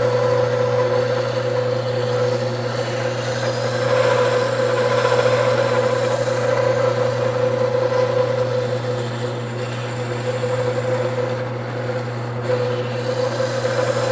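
Wood lathe running with a steady hum and whine while a hand-held turning tool cuts and scrapes the spinning wood, the scraping swelling and easing as the tool is worked.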